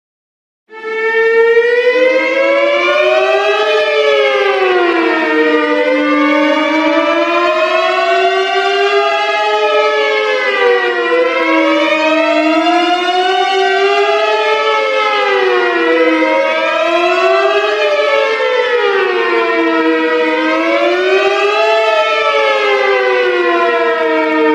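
Emergency alert alarm: several loud siren tones sound together, each sliding slowly up and down in pitch on its own wavering cycle of a few seconds. It starts just under a second in.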